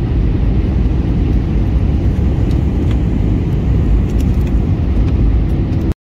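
Airliner cabin noise on approach to landing: a loud, steady low roar of the jet engines and rushing air, heard from a window seat over the wing, with a few faint clicks. It cuts off suddenly near the end.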